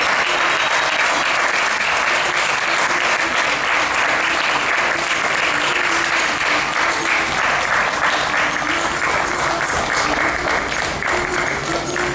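Audience applauding steadily at the end of a stage performance.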